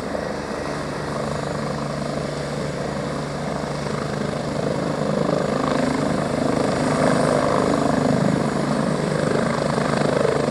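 Airbus Helicopters EC145 twin-turbine police helicopter running close by, its main rotor beating in fast, even pulses over the turbine noise as it hovers just above the ground and settles onto its skids. It grows a little louder about halfway through.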